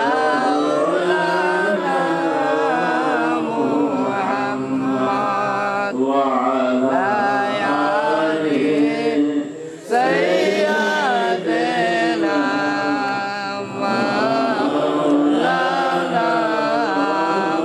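A man's voice chanting in long, drawn-out melodic lines into a microphone, with a short break about ten seconds in.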